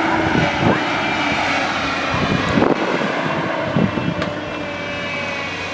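JCB backhoe loader's diesel engine running steadily at working revs, with a few short knocks of the digging gear.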